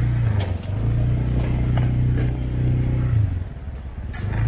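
A motor vehicle engine running close by as a loud, low, steady hum that drops away briefly twice, with a few sharp knocks or clatters over it.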